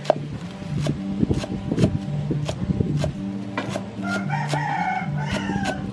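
Cleaver chopping green onions on a wooden cutting board, about two chops a second. A rooster crows in the second half.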